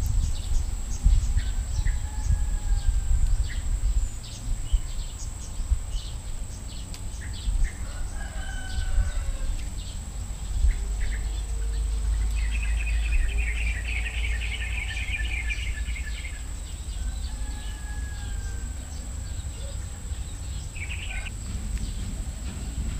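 Domestic chickens clucking and calling, with one pulsing call of a few seconds about halfway through. Low wind rumble on the microphone and small clicks of the cat chewing grass run underneath.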